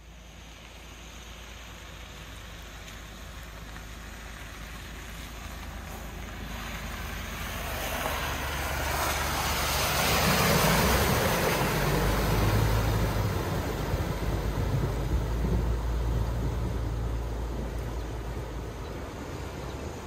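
Four-wheel-drive vehicle at the river crossing: its engine runs under a rushing noise that builds to a peak about halfway through, then eases off.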